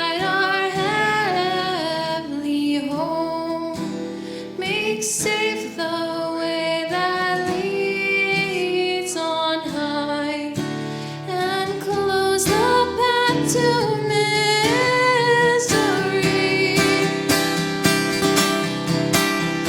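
Worship band playing a Christmas hymn, with a female voice singing over strummed acoustic guitar.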